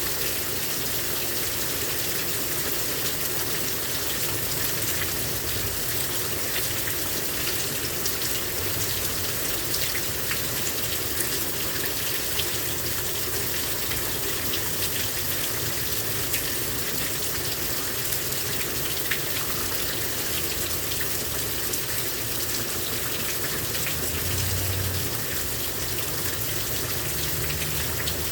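Heavy rain pouring down steadily, with many individual drops ticking on surfaces. A low rumble rises briefly near the end.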